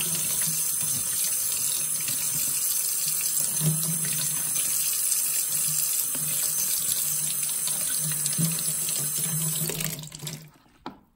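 Kitchen faucet running into a stainless steel sink, the stream splashing over green onions and hands as they are rinsed. The water stops about ten seconds in.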